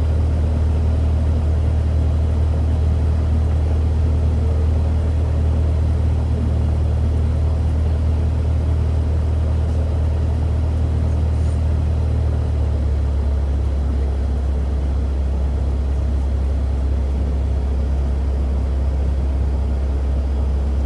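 Cessna 172's single piston engine and propeller running at low power on the ground, heard inside the cabin as a steady low drone. The engine note drops slightly about twelve seconds in.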